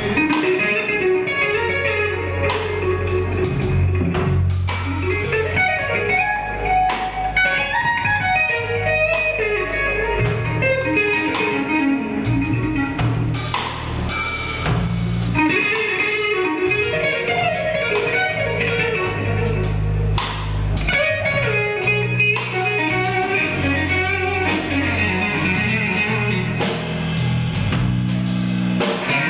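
Live rock band playing: an electric guitar over a drum kit, with regular drum hits throughout.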